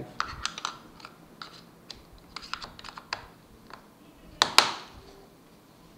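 Small plastic clicks and taps as the adapter insert of a magnetic phone charging dock is pulled out and the original fitted back by hand, with a louder double click about four and a half seconds in.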